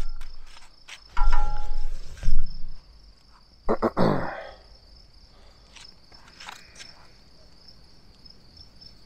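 Crickets chirping steadily in a thin, high, pulsing trill. Over the first four seconds or so, a handful of metallic clinks and knocks, some briefly ringing, come from hands working at the closed ceramic grill.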